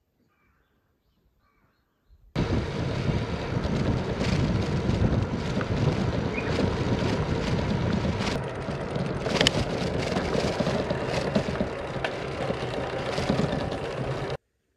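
Wind rushing over the microphone of a camera mounted on a moving bicycle, with road rumble and occasional sharp clicks and rattles. It starts abruptly a couple of seconds in after near silence, and cuts off shortly before the end.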